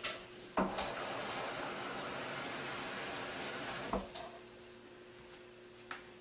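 Kitchen tap run for about three seconds, filling a cup with water, opening and closing with a short knock; after that only a faint steady hum and a small click.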